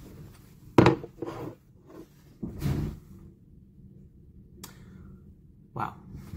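A plate set down on a tabletop with a sharp knock about a second in, followed by softer bumps and shuffling as someone sits down at the table.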